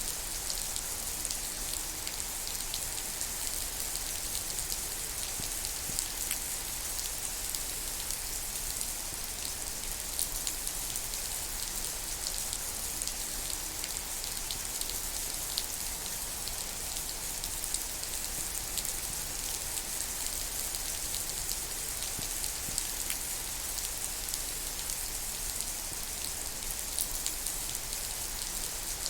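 Steady rain falling, with many small drop ticks spattering on nearby surfaces.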